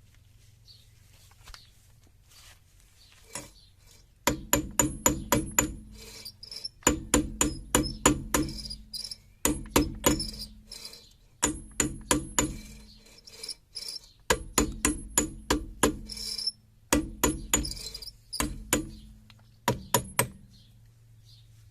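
Hammer blows on metal, in runs of three to eight strikes about four a second with short pauses between, each strike leaving a brief metallic ring. The blows start about four seconds in and stop just before the end.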